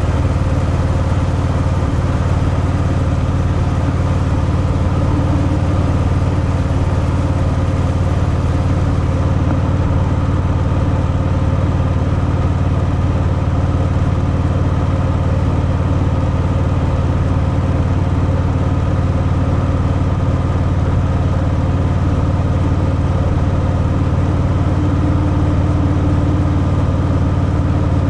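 Stock Harley-Davidson Fat Boy's V-twin engine running through its stock exhaust at a steady, unchanging engine speed.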